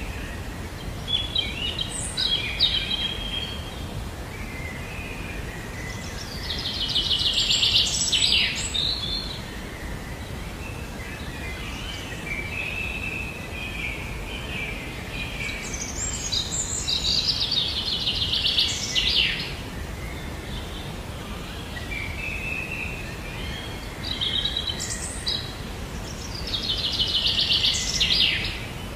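Birdsong over a steady background hiss. A rapid, high trill comes three times, each a few seconds long, with shorter chirps between, the sequence repeating about every nine seconds.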